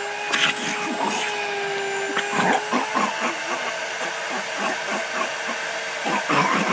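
Vacuum cleaner motor running with a steady whine, with repeated short knocks and rattles from about two seconds in.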